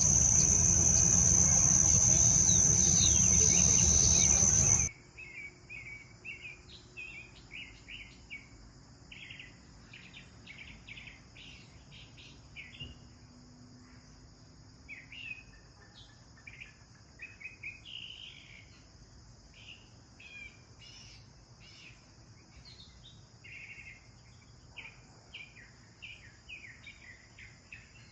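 House sparrows chirping in quick irregular bursts over a steady high-pitched insect drone. For the first five seconds a much louder rush of noise with a steady high whine covers everything, then cuts off abruptly.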